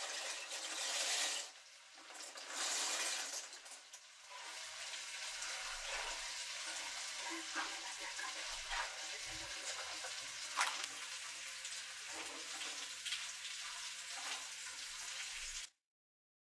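Dry elbow macaroni poured from a plastic bag into a pot of water in two loud rushes. Then a steady hiss of the pot boiling, with light scattered clicks of a utensil stirring the noodles, until the sound cuts off suddenly near the end.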